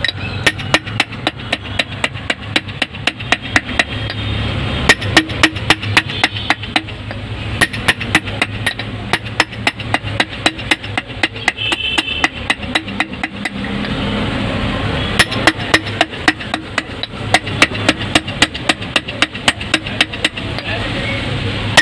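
Small hammer tapping rapidly around the crimped metal rim of a Minda trumpet sealed horn resting on a steel block. It gives sharp metal-on-metal blows at about three to four a second, with a couple of short slack spells.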